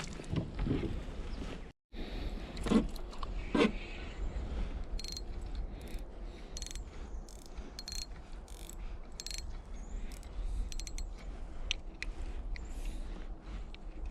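Fishing reel being worked: a run of irregular mechanical clicks and ticks over a low wind rumble, with two duller knocks early on. The sound cuts out completely for a moment about two seconds in.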